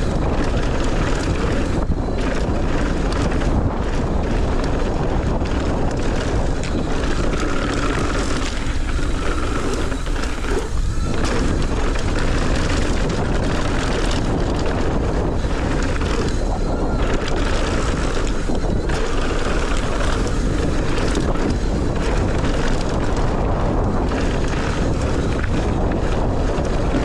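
Mountain bike rolling fast down a dry dirt trail: wind buffeting the microphone over the hum of the tyres, with frequent small knocks and rattles from the bike over bumps.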